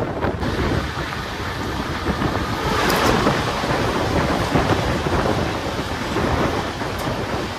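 Express train running at speed: a loud, steady rumble and rattle of wheels on the rails with rushing wind, swelling briefly about three seconds in, with a single sharp click near the end.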